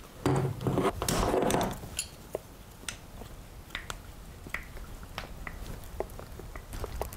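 Vise grips clamped on a carburetor's fuel inlet fitting as it is twisted and worked loose: a loud stretch of crunching and scraping in the first two seconds, then scattered small clicks and ticks of metal and plastic.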